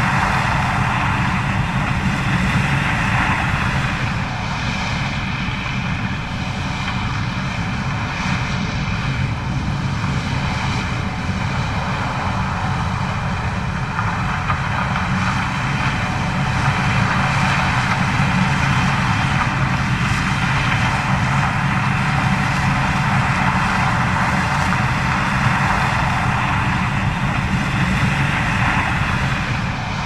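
Gleaner S68 combine harvesting corn and unloading grain into a tractor-pulled grain cart running alongside: a steady drone of heavy machinery with a high whine held above it. A second whine joins about four seconds in.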